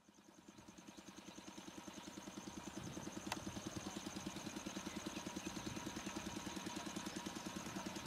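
WAM4 electric locomotive hauling a passenger train as it approaches: a low pulsing hum, about ten beats a second, that fades in and grows steadily louder.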